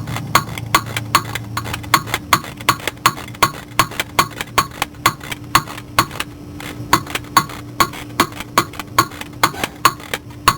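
Hand ratchet clicking in an even rhythm, about three to four clicks a second, as a bolt is turned, over a faint steady hum.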